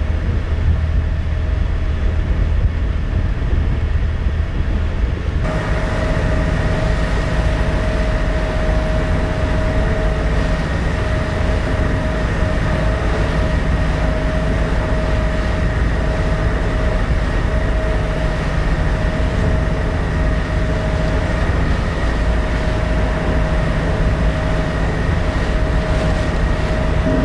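Steady drone of the car ferry Sound of Shuna's engines and machinery under way, a low rumble with a constant hum over it. The sound changes abruptly about five seconds in, the hum growing brighter, and then runs on evenly.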